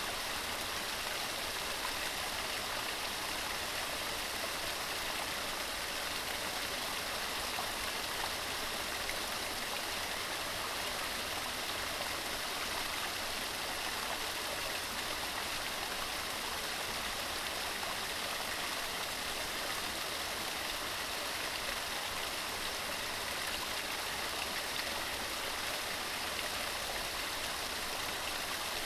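Mountain stream running steadily over rocks, an even rushing and splashing of water.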